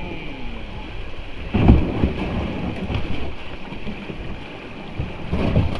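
Running creek water with low rumbling knocks of a kayak and paddle. The loudest knock comes about one and a half seconds in.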